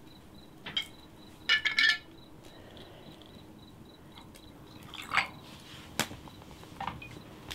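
A few sharp clinks and knocks, the loudest a short metallic-sounding rattle about a second and a half in, over a faint, evenly pulsing high chirping.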